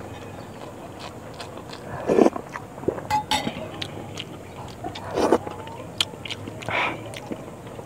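Eating by hand: fingers working rice and dinuguan on a banana leaf, with scattered small clicks and a few short mouth or breath sounds about two, five and seven seconds in, over a steady low hum.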